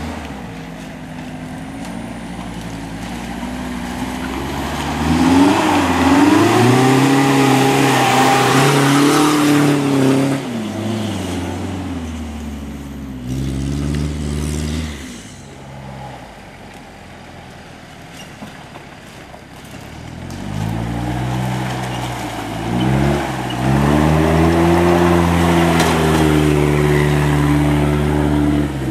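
Off-road 4x4 engines revving under load as the vehicles climb a muddy forest track one after another. The pitch rises and falls with the throttle. The engine noise swells loud twice for several seconds and eases off in between.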